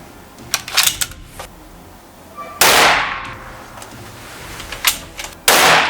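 Two rifle shots from a Steyr Mannlicher SSG 08 bolt-action rifle, about three seconds apart, each a loud sharp crack with a ringing tail. Shorter, quieter clicks come before each shot.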